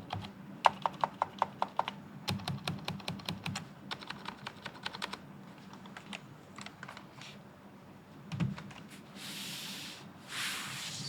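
Typing on an electro-capacitive (Topre-style) 60% keyboard. Quick runs of keystrokes fill the first five seconds, then slower scattered presses follow, with a single low thump about eight seconds in. Two short hissing noises come near the end.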